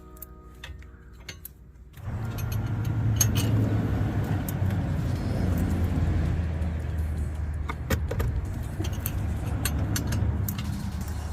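A car running with a steady low rumble that comes in suddenly about two seconds in, with light metallic clicks and jingles over it.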